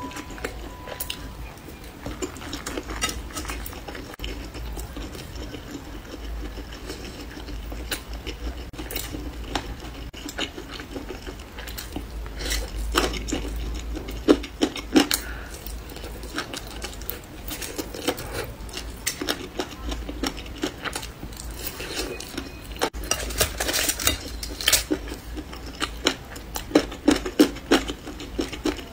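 Close-up eating sounds: chewing skewered food, with irregular clicks and taps from bamboo skewers against the foil-lined tray. The clicks come thickest about halfway through and again near the end.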